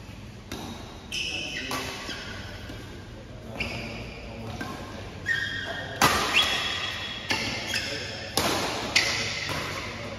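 Badminton rally: rackets smacking the shuttlecock back and forth, sharp hits every half second to a second and a half, the loudest about six and nine seconds in, echoing in a large hall, with short high squeaks between the hits.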